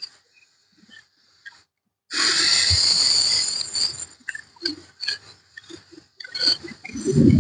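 Aerosol spray-paint can spraying in one steady hiss of about two seconds, starting about two seconds in. Short knocks and clicks of handling follow.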